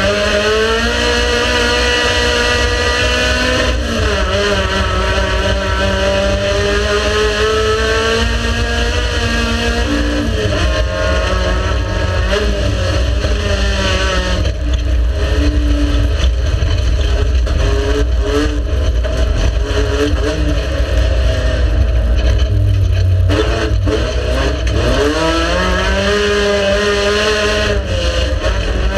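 Race car engine running hard, its pitch climbing and dropping again and again as it accelerates, shifts and slows, over a heavy steady low rumble.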